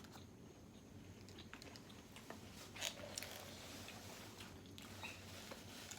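A person chewing and biting food close to the microphone: faint, scattered mouth clicks and smacks, with one louder click about three seconds in.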